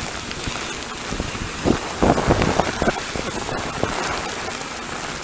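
Hurricane wind gusting with heavy rain, the gusts buffeting the microphone with low rumbles. The strongest surge comes about two seconds in.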